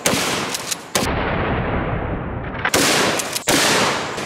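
Several gunshots in quick succession, about one a second, as watermelons are shot and burst apart.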